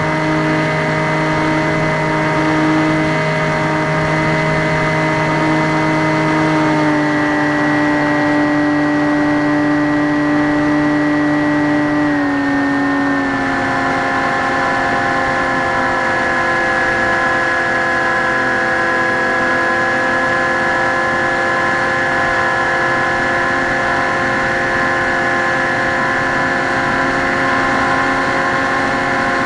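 Electric motor and propeller of a Skywalker X5 flying wing whining steadily in flight. Its pitch steps down slightly twice, about seven and about twelve seconds in, then holds steady.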